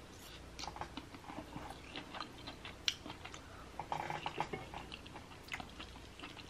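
Chewing a mouthful of asparagus and crab-stuffed salmon: soft wet mouth clicks and small crunches scattered throughout, busiest around the middle.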